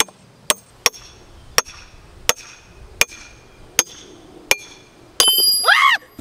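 Sledgehammer driving a steel wedge into a dry, seasoned log, eight sharp metal-on-metal strikes about one every 0.7 seconds, each with a short ring. Near the end comes a louder, longer ringing crack as the log splits and a quarter of it breaks away, which the splitter puts down to spreading dry seasoned wood.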